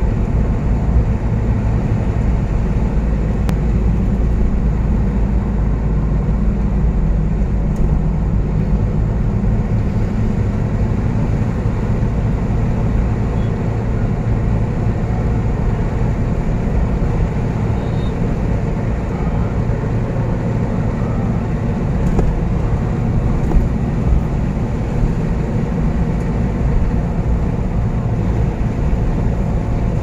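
Steady in-cabin drone of a Tata Sumo Gold cruising on a paved road: its diesel engine running at a constant pace, mixed with tyre and road noise.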